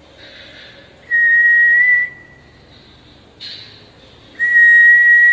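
A person whistling two long, steady high notes about three seconds apart, each lasting about a second, with breathy air noise around them.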